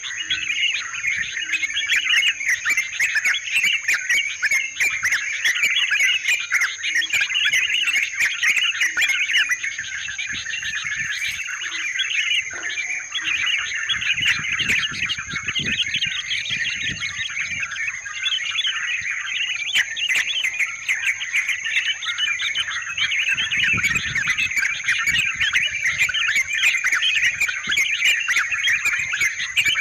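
Yellow-vented bulbuls (trucukan) chattering, several birds calling at once in a dense, unbroken stream of rapid bubbly notes, played as a lure recording to attract the same species. A thin, steady high whine runs underneath.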